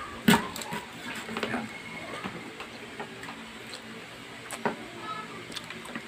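Kitchen knife cutting through a parrotfish on a wooden chopping board: scattered sharp knocks of the blade striking the board. The loudest knock comes just after the start and another about four and a half seconds in.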